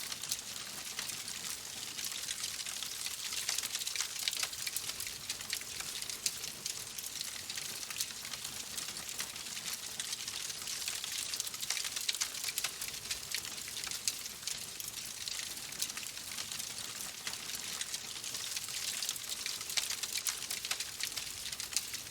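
Fire crackling in a fireplace: a steady hiss dense with small, quick pops.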